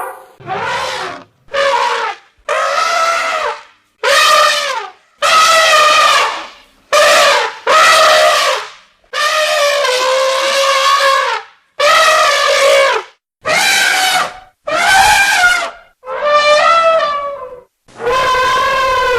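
Elephant trumpeting: a run of about a dozen loud, brassy calls in quick succession, each lasting half a second to two seconds, several bending down in pitch at the end.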